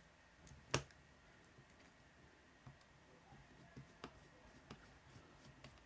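Faint clicks of a small screwdriver working the screws inside a Casio CQ-1 calculator's case: one sharper click about a second in, then a few fainter ticks, with near silence between.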